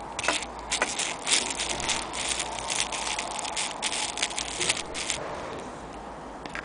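Bubble wrap crinkling and rustling as it is handled, an irregular run of crackles that dies away about five seconds in.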